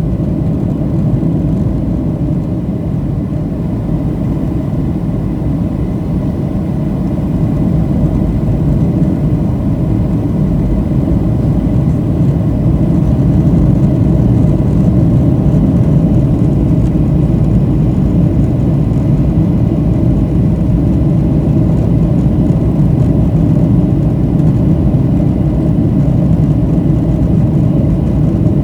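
Steady roar of jet engines and rushing air heard inside the passenger cabin of a Boeing 737-700 in flight. It grows gradually louder over several seconds, starting about a quarter of the way in, then holds level.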